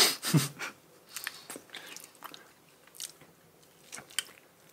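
Close-up mouth sounds of eating soft, creamy durian flesh: wet smacking and chewing clicks, with a louder burst right at the start.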